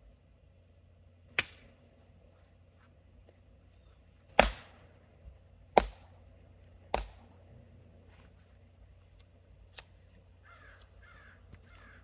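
Axe blows on firewood: four sharp wooden impacts a second or more apart, the second and third the loudest. Near the end a bird calls three times.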